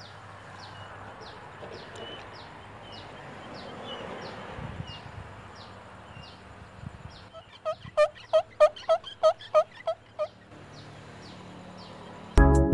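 Domestic fowl giving a run of about ten quick, evenly spaced calls over nearly three seconds, starting about halfway through, over faint outdoor noise with a small bird's short high chirps repeating about twice a second. Music starts just before the end.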